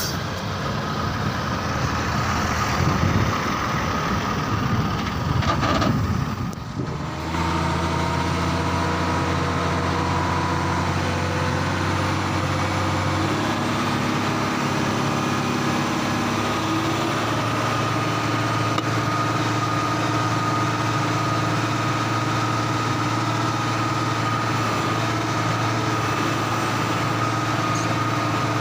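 Heavy diesel engine running, its pitch rising and falling over the first six seconds. After a short dip about seven seconds in, it settles into a steady idle with small shifts in pitch.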